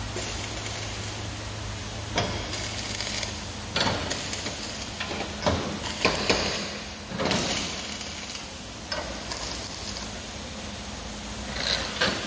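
Electric arc welding on a steel truck cargo-box panel, in several short bursts of crackling arc a second or two apart, like tack welds, over a steady low hum.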